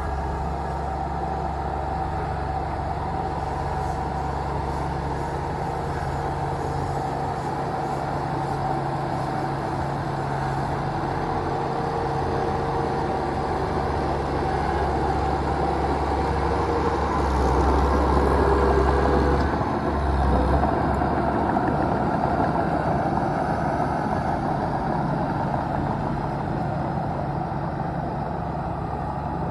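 Bulldozer's diesel engine running steadily as it pushes soil, with a deep drone that grows louder for a few seconds past the middle.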